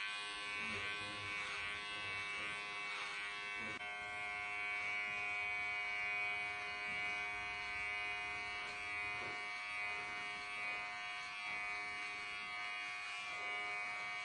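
Cordless electric hair clipper running with a steady buzz as it cuts hair over a comb on top of the head.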